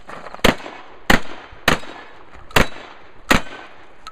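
Five shotgun shots fired in quick succession, roughly two-thirds of a second apart with a slightly longer gap before the fourth, each followed by a brief echo.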